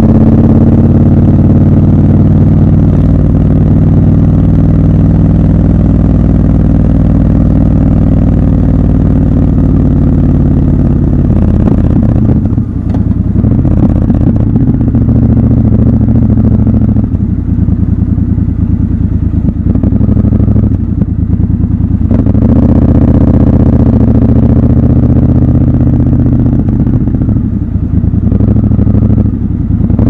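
Triumph Scrambler 1200 XC's 1200 cc parallel-twin engine running under way. It holds a steady note for the first ten seconds or so, dips briefly several times through the middle as the throttle eases and opens, then runs steady again.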